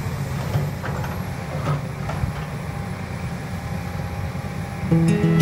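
Volvo crawler excavator's diesel engine running steadily while its bucket digs into the soil, with a few faint knocks early on. Guitar music comes in near the end.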